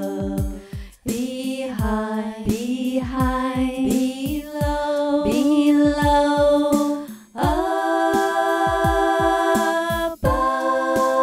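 Background music with a steady beat under held melody notes, pausing briefly about a second in and again near the seven-second mark.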